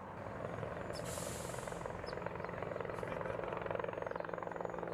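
Helicopter running with a fast, steady rotor chop that grows louder about half a second in, with a brief high hiss about a second in.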